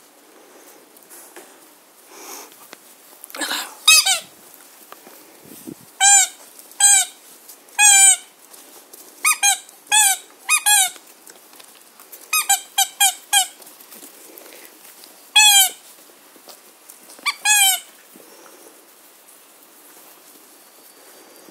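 A squeaky dog toy squeaking about eighteen times as a puppy bites on it, singly and in quick runs of up to five.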